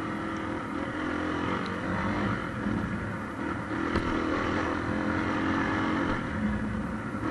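Motorcycle engine running as it rides along a dirt track, its pitch rising and falling with the throttle, with one short knock about four seconds in.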